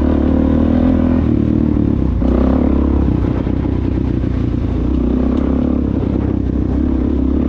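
Suzuki DR-Z400 single-cylinder four-stroke motorcycle engine running under way on a dirt trail, the throttle opening and easing off a few times.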